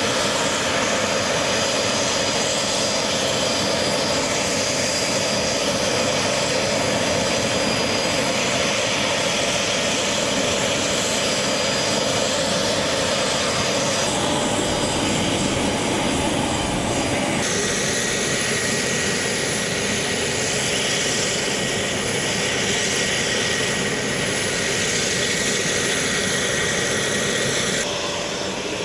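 Jet aircraft engines running steadily on a flight line, a loud, even rush of noise with a thin high whine over it. The sound changes abruptly a few times, about halfway through and near the end.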